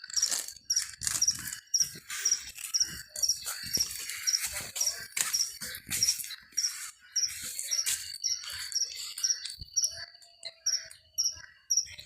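Night insects: a steady high buzz with a regular high chirp about twice a second, over irregular sharp crackles and clicks.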